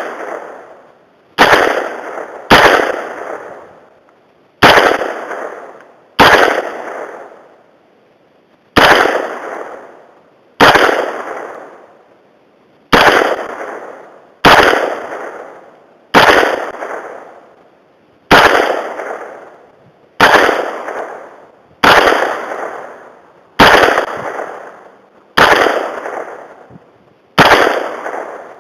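Smith & Wesson M&P-15 AR-15 rifle fired shot by shot in semi-automatic, about fifteen loud single shots one to two seconds apart. Each shot is followed by an echo that dies away over about a second.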